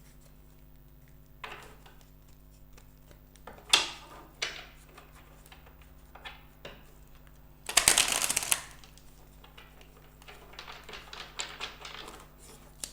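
Tarot cards being handled on a table: a few sharp slaps as cards are set down, a dense card-flutter about a second long near the middle, and a patter of light card rustling near the end.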